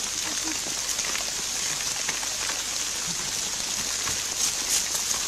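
A steady, even hiss, brightest in the high range, with scattered faint ticks.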